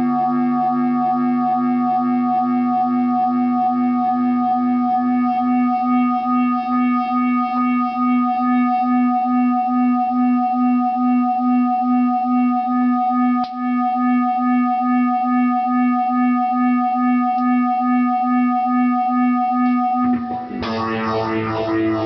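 Acoustic guitar fed through an effects unit, holding one sustained droning chord that pulses about twice a second. There is a single click about thirteen seconds in, and near the end the drone gives way to a different chord.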